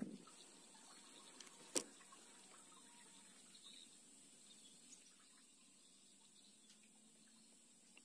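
Near silence, a faint hiss, broken by one sharp click about two seconds in.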